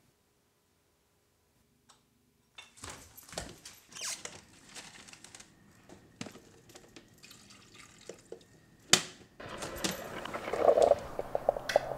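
A drip coffee maker being handled, with clicks and knocks starting about two and a half seconds in and one sharp click later on. Then liquid runs and splashes, growing louder over the last couple of seconds.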